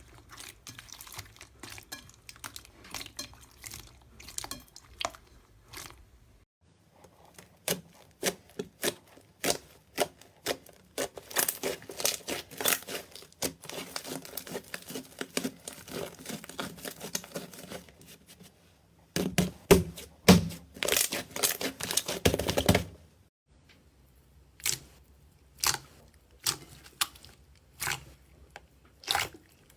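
Slime being squeezed, pressed and stretched by hand, giving many short sticky pops, crackles and clicks. The sound changes character about 6 seconds in and again about 23 seconds in, with the loudest squelching pops between about 19 and 23 seconds in.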